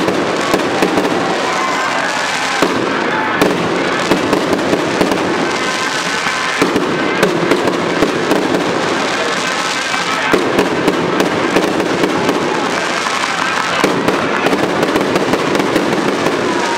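Fireworks display: aerial shells bursting in quick succession, with several sharp pops a second over dense crackling.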